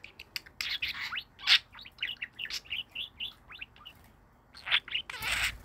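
Budgerigars chirping in short, quick calls. Near the end a budgie bathes in a bowl of water, its wings flapping and splashing.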